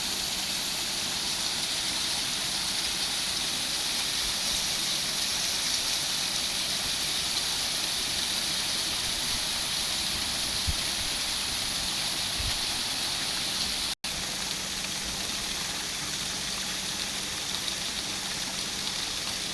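Fountain water splashing and falling steadily, a dense even rush strongest in the upper range, with a faint low hum beneath. The sound breaks off for an instant about two-thirds of the way through, then carries on the same.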